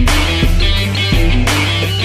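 Background rock music with guitar, bass and drums and a steady beat.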